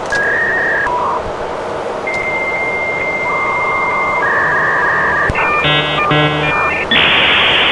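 Simple electronic tones like synthesized chiptune music: held beeps at a few different pitches, then a quick run of chord-like pulses, after which a steady hiss comes in near the end. A low cab rumble runs beneath.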